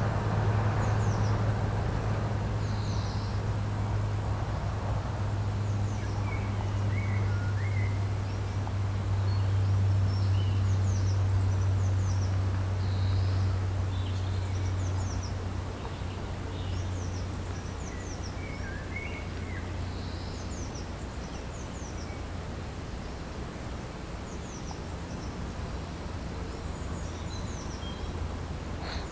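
Birds singing and calling in the open air, many short high chirps scattered throughout, over a low steady hum that fades about halfway through.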